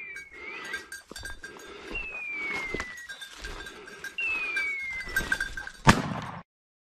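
Three falling whistled cries about two seconds apart, each about a second long, from a pointing dog's beeper collar signalling that the setter is on point. About six seconds in, a single side-by-side shotgun shot, the loudest sound.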